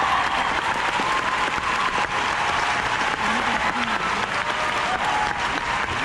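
Large audience applauding steadily, dense clapping with a few voices calling out over it.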